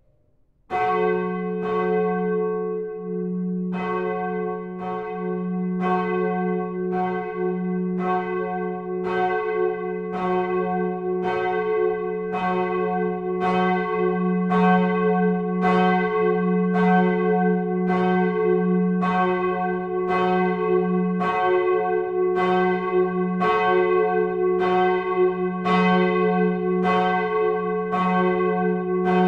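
A church bell being swung and rung. It starts just under a second in and is struck roughly once a second, each stroke ringing on into the next with a strong low hum.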